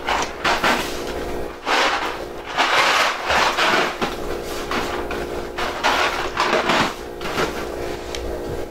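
Boxes and jars being handled and slid about on the shelves of a wooden kitchen wall cabinet: an irregular run of scrapes and knocks, over a faint steady hum.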